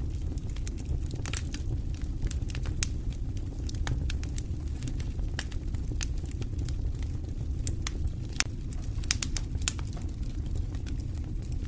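Fire burning in a fireplace: a steady low rumble of flames with irregular sharp crackles and pops throughout.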